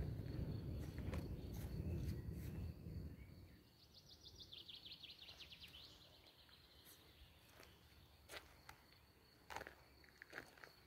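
Distant thunder rumbling low and fading out over the first few seconds. About four seconds in, a songbird sings a quick trill that steps down in pitch for about two seconds, and a few footsteps crunch on gravel near the end.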